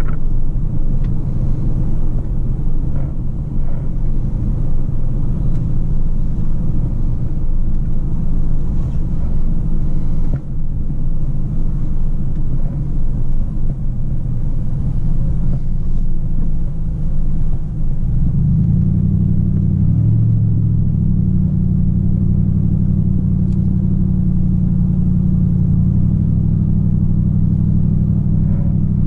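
Road noise inside a moving vehicle's cabin on a highway: low, steady engine and tyre noise. About two-thirds of the way through it settles into a steady low hum.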